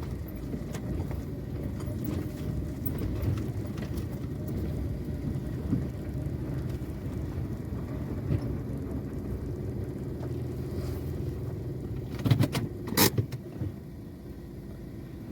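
A car running, a steady low rumble, with a brief cluster of sharp clicks and a short tone about twelve seconds in.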